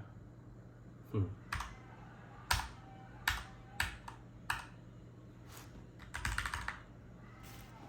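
Keys of a Keychron K10 mechanical keyboard being pressed one at a time at irregular intervals, with a quick run of keystrokes about six seconds in.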